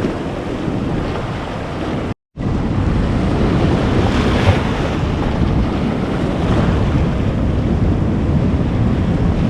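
Sea surf washing against rocks, with wind buffeting the microphone, a steady rushing noise. The sound drops out completely for a moment a little over two seconds in, then carries on.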